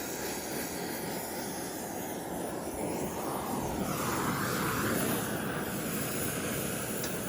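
Oxyacetylene torch flame burning with a steady rushing hiss, swelling somewhat about three to five seconds in.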